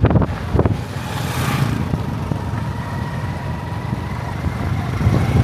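A motor vehicle's engine running steadily, a low rumble with a faint steady whine above it, and a few short knocks right at the start.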